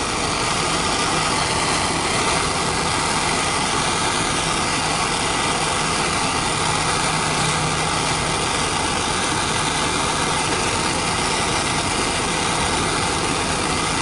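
Handheld gas torch burning with a steady rushing hiss, heating heat-shrink tubing over a battery cable lug.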